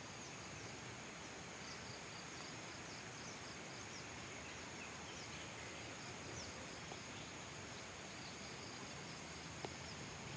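Steady high-pitched drone of insects, crickets among them, over a faint outdoor hiss, with a few short faint chirps and a single click near the end.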